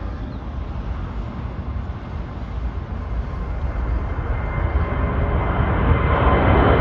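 Twin-engine jet airliner climbing out at takeoff power. The engine rumble grows steadily louder as it approaches, and a high whine of steady engine tones comes in about four seconds in.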